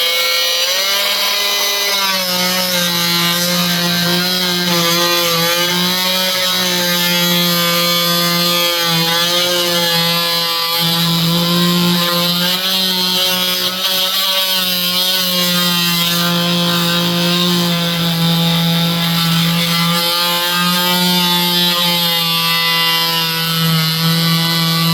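Electric router running continuously as its bit cuts a hinge recess in wood, the motor's pitch dipping and recovering slightly under the load of the cut.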